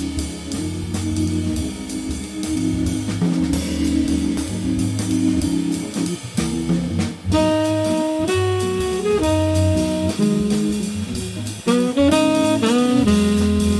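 Organ-trio jazz: Hammond B-3 organ chords and bass line over a drum kit with cymbals, and a tenor saxophone entering with the melody about seven seconds in.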